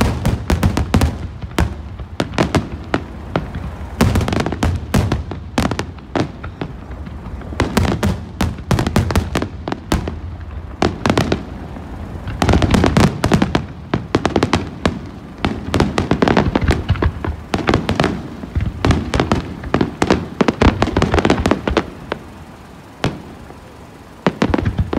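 Aerial fireworks display: rapid volleys of shell bursts, bangs and pops, coming in dense clusters with short gaps between them. The volleys thin out briefly near the end before one more cluster.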